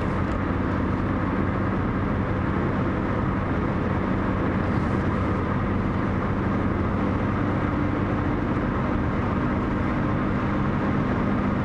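Car engine and tyre noise heard from inside the cabin while driving at a steady speed: a steady low drone, with another faint engine tone coming in about seven seconds in.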